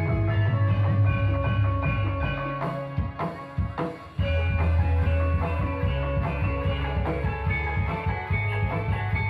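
Javanese jaranan accompaniment music: a melody of pitched mallet-struck notes over drums and a heavy bass line. The music thins out about three seconds in, leaving a few drum hits, then comes back in fully about a second later.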